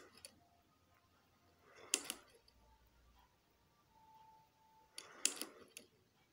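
Sand-powered toy acrobat flipping over with a brief clicking clatter, twice, about three seconds apart. Each clatter builds from a soft rustle into a quick run of sharp clicks.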